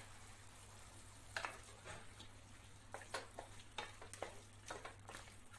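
Spatula stirring chicken pieces and spice powder in a stainless steel pan: faint, irregular scrapes over a low sizzle.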